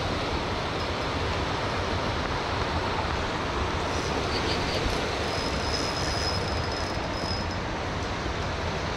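Steady rushing noise of water below a hydroelectric dam, even and unbroken. A faint thin high whine rides over it for about two seconds in the middle.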